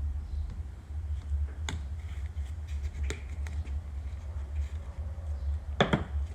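Small metal parts and hand tools clicking sharply on a rotary-engine rotor during disassembly: a few single clicks, then a louder double click near the end. A steady low hum runs underneath.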